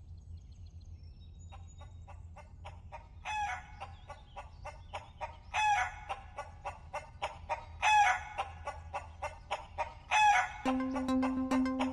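Rooster crowing four times at an even pace, about every two seconds, over a fast ticking beat in a music track. A low held note joins near the end.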